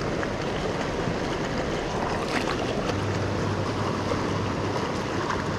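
Fast, shallow river water rushing over riffles: a steady wash.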